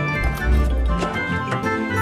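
Upbeat background music with pitched notes over a pulsing bass beat.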